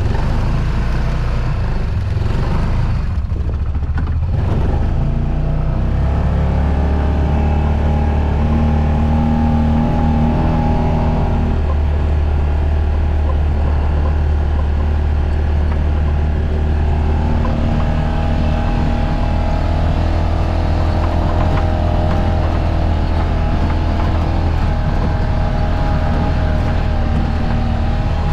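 Four-wheel-drive vehicle's engine running while it is driven over rough ground, the engine note shifting up about six seconds in and dropping back around twelve seconds in.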